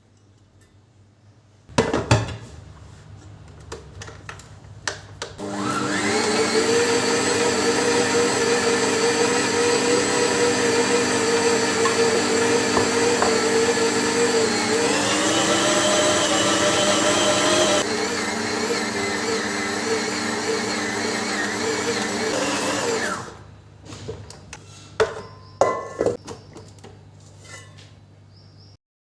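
Electric kitchen mixer motor. A knock and a low hum come first. From about five seconds in it runs loud and steady for about seventeen seconds, its pitch stepping up partway through, then it stops. A few clicks and knocks follow.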